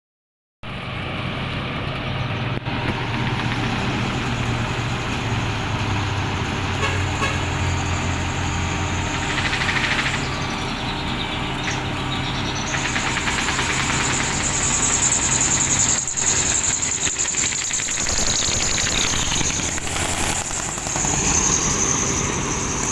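Heavy diesel road-works machinery running steadily for asphalt removal, with engine hum and grinding noise; a high, steady whine joins about halfway through.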